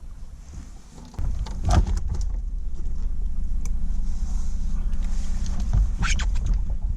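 A boat motor starts running steadily about a second in, a low rumble with a steady hum. Two sharp knocks come during it.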